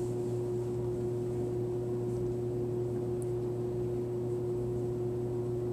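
Room tone: a steady hum with one constant pitched tone and no other sound of note.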